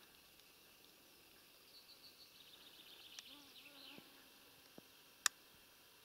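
Faint forest ambience. A songbird sings a fast trill of high notes that slides downward and ends in a falling flourish, while a flying insect buzzes close to the microphone. About five seconds in there is a single sharp click.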